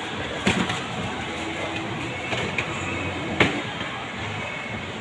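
Steady background noise with a few sharp knocks and rustles from a handheld phone being handled, the loudest about half a second in and again a little after three seconds.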